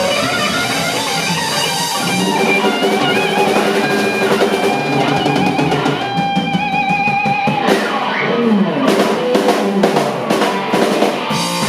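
Live rock band: an overdriven electric guitar, a Gibson Les Paul through a Tone King Comet amp, plays held lead notes with vibrato over a drum kit. In the second half the drums and cymbals hit a dense run of strikes.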